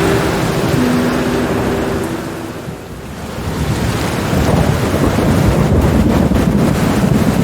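Steady rain with a rumble of thunder that swells up from about three seconds in and rolls on.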